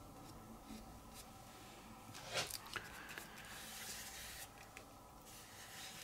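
Faint swishing of a small paintbrush stroking paint onto paper, with a couple of light taps about two and a half seconds in.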